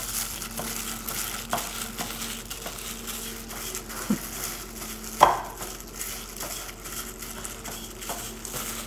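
A gloved hand rubbing and mixing dry rice flour with sweet pumpkin powder in a glass bowl: a steady dry rustling and crinkling of the plastic glove and flour, with light ticks and one sharper clink about five seconds in.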